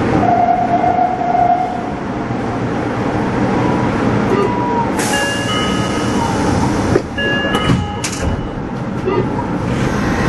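Nagoya Meijo Line subway train heard from the driver's cab: a steady rumble and hum, with a whine that holds and then glides in pitch. Two sharp bursts of hiss come about halfway through and again about three seconds later.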